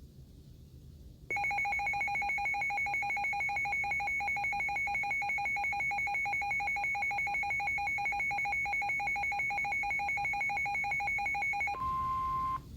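A weather radio's electronic alert alarm sounding a loud, rapidly pulsing two-pitch beep for about ten seconds after a quiet start, the sign that a warning has been received. It gives way to under a second of a steady single tone, the tail of the NOAA Weather Radio 1050 Hz warning alarm tone, just before the broadcast voice begins.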